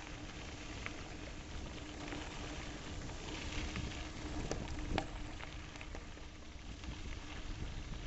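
Continuous crackling crunch of loose gravel under travel along a gravel trail, with a few sharper clicks about halfway through. A low wind rumble on the microphone and a faint steady hum sit underneath.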